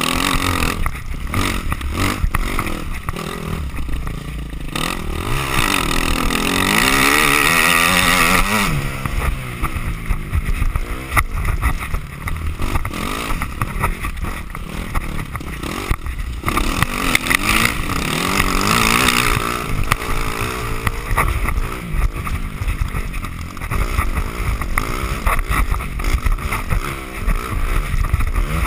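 Off-road motorcycle engine revving up and dropping back repeatedly as the bike is ridden hard over a rough dirt trail, with a heavy rumble of wind and jolting on the microphone.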